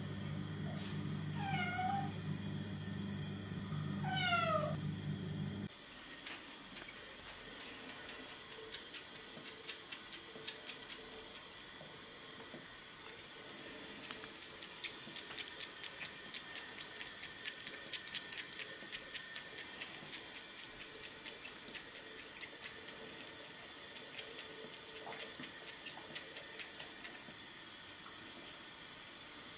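Tabby kitten meowing twice in the first few seconds, over a steady low hum. From about six seconds in, a thin stream from a mixer tap runs into a ceramic wash basin, with a light patter of splashes from about halfway through.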